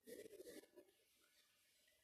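Near silence: faint room tone, with a brief soft noise in the first half second.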